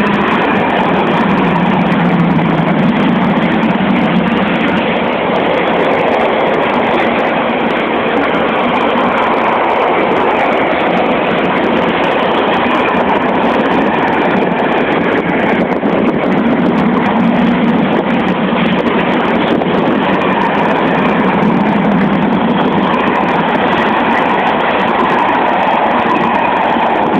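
A long freight train of container flat wagons rolling past at steady speed: a continuous loud rumble of steel wheels on the rails.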